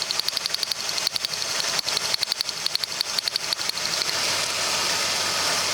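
Spark from a good ignition coil on a 2001 Ford Taurus snapping steadily across to a grounded test light, about ten sharp snaps a second over the engine idling. The strong, regular spark shows the coil is healthy. The snapping stops about four seconds in, leaving the idle.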